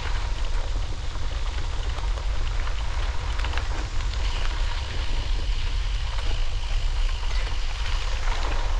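Wind rumbling on the microphone over a steady crackling hiss with scattered small clicks, as of movement along a trail; a faint thin high tone comes in about halfway through.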